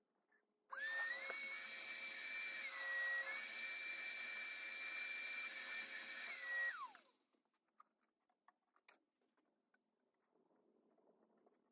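A high-speed electric motor switches on and rises quickly to a steady high whine. It runs about six seconds, dropping briefly in pitch about a third of the way through, then cuts off with a short falling wind-down, followed by faint brushing and scuffing.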